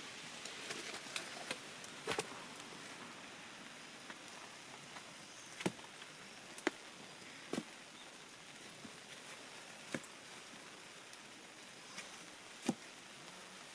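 Scattered raindrops dripping as single sharp taps at irregular intervals, roughly one a second, over a faint steady hiss of rain.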